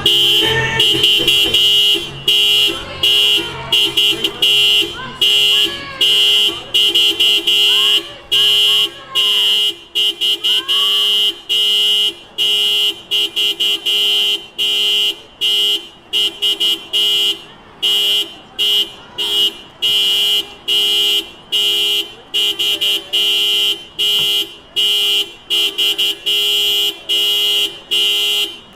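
Car horn honked over and over in a long irregular run: longer blasts with brief breaks at first, then mostly short honks, often about two a second.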